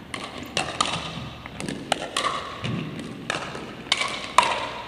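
A pickleball rally: paddles strike the hard plastic ball and it bounces, about six sharp hits spread over the few seconds, each echoing in a large gymnasium.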